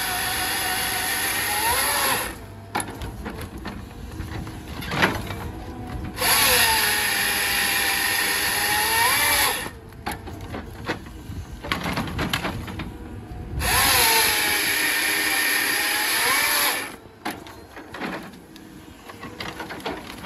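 Ryan's Equipment 2059 hydraulic grapple saw on an excavator, its saw running in three loud cutting passes through a tree trunk. Each pass is a high whine that sags in pitch and swings back up as the cut ends. One pass is already running at the start, and the others come about six and fourteen seconds in. Between cuts, the excavator's hydraulics work more quietly, with a sharp knock about five seconds in.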